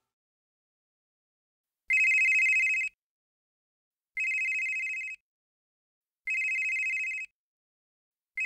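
Telephone ringing, the first ring about two seconds in. Three rings about a second long, each a high warbling two-note trill, come about two seconds apart, and a fourth begins near the end.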